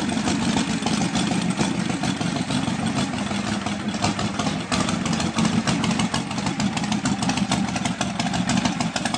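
Feuling W3 motorcycle engine idling steadily with a dense, uneven pulsing beat. The engine is a three-cylinder W built from a 45-degree Harley-Davidson V-twin with a third cylinder added.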